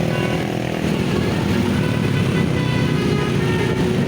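Bus engine running, with a multi-tone basuri musical horn playing over it. The horn's notes sound as several steady tones, with a falling slide about a second in.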